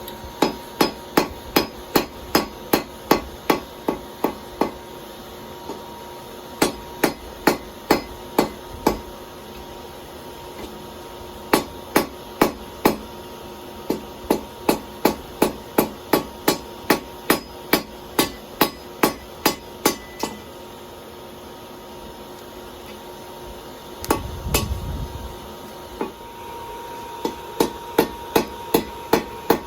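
Blacksmith's hand hammer striking hot steel on an anvil in runs of steady blows, about two to three a second, with short pauses between the runs while drawing out a taper. A brief low rumbling noise comes between the runs about three-quarters of the way through.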